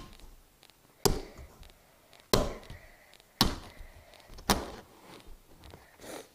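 Repeated hard strikes on a Nokia flip phone, four sharp blows about a second apart, each with a short ring after it.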